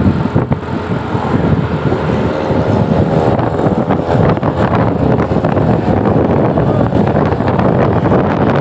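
A large road vehicle rushing past close by: engine and tyre noise, with wind buffeting the microphone.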